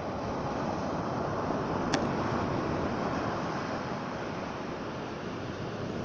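Black Sea waves washing on the shore, a steady rushing that swells and eases, with wind noise on the microphone. A single sharp click about two seconds in.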